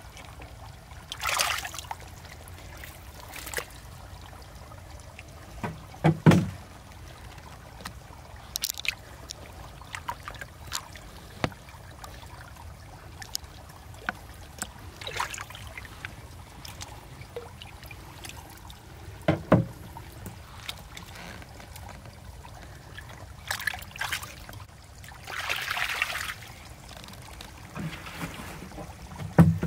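Hands splashing and sloshing in shallow muddy water while grabbing small fish, as scattered short splashes and squelches over a low steady background, with a few sharper knocks, the loudest about six seconds in, near twenty seconds and at the very end.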